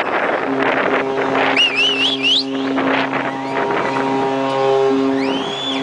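Cruise ship horn sounding a tune of long held notes that change pitch, the musical horn of the Disney Magic. Shrill warbling whistles cut in about two seconds in and again near the end, over wind noise.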